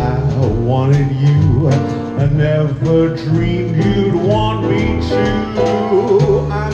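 Live band playing an instrumental passage with keyboard and drums, with guitar-like bending notes over a steady bass line.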